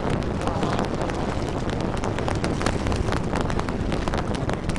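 Wind buffeting the microphone over open water: a steady low rumble with frequent short crackles.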